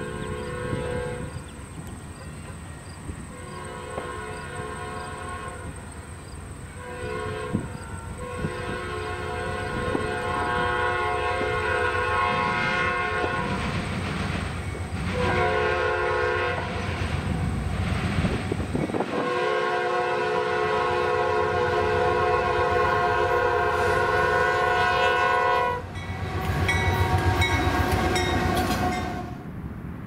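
Diesel freight locomotive's fouled multi-chime air horn sounding a series of blasts for a grade crossing, the later blasts several seconds long, over the rumble of the passing train. Near the end, after a brief dip, a differently pitched horn sounds.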